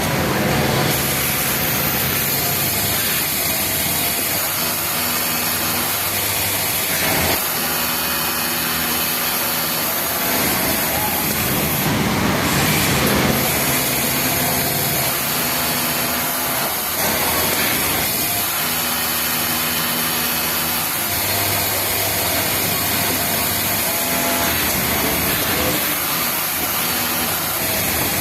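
Industrial overlock sewing machine running in repeated runs of a few seconds, starting and stopping as the cuff seams are stitched, over a steady noisy background.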